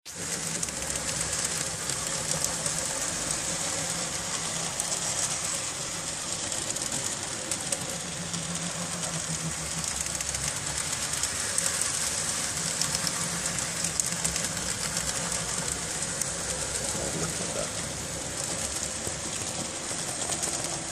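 N gauge model trams running round the layout: a steady whir of their small electric motors and wheels on the rails.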